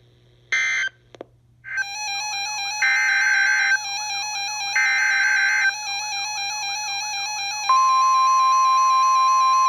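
Emergency Alert System tones from a NOAA Weather Radio broadcast. A few short digital data bursts sound over a steady electronic tone pattern, then two longer data bursts of about a second each follow. About eight seconds in, the single steady 1050 Hz weather-alert alarm tone starts, marking the start of the next warning.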